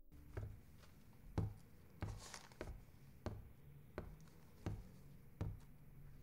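Footsteps on a hard floor, a little under two steps a second, over faint room tone.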